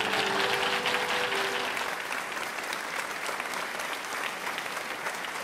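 Audience applauding, easing off slightly toward the end, while the last held notes of the music die away in the first two seconds.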